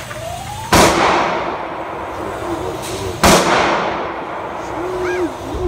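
Two loud gunshots about two and a half seconds apart, each with a long echo off the walls of an indoor shooting range.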